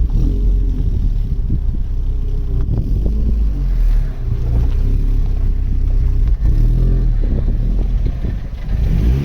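Vauxhall Cavalier's 1.8-litre four-cylinder engine, fitted with an SRi 130 top end, running and being revved up and down while a misfire is diagnosed.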